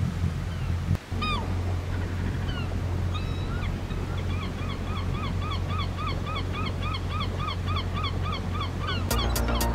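A boat's engine runs with a steady low drone under the rush of water along the hull and wake, while birds call over it in a regular series of short falling calls, two or three a second.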